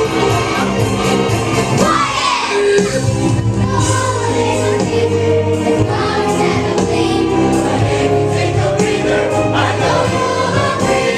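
Choir singing a Christmas cantata with musical accompaniment, many voices holding sustained notes together.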